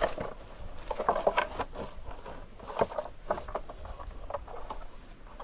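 Irregular rustling with scattered light snaps and knocks, like leaves and twigs of an ackee tree being handled while the fruit is picked.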